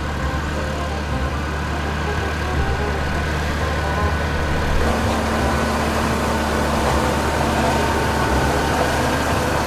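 Massey Ferguson farm tractor's diesel engine running steadily as it pulls a rotary hay rake across a field. The engine note shifts slightly about halfway through.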